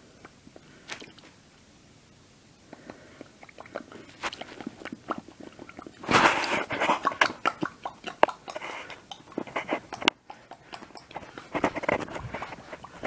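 Irregular crackling and clicking close to the microphone, loudest in a dense burst about six seconds in, with more bursts near the end.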